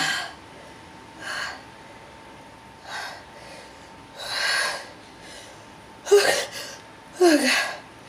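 A man's fit of repeated sneezes. A sneeze ends just as it starts, then come a few sharp breaths in, then two loud sneezes about a second apart near the end.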